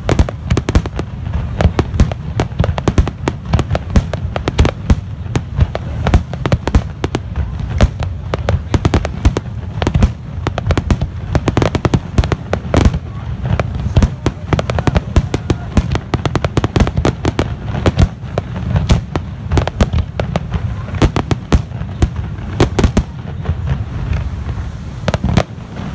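Professional fireworks display: aerial shells bursting in a rapid, unbroken barrage of bangs and cracks over a deep rumble.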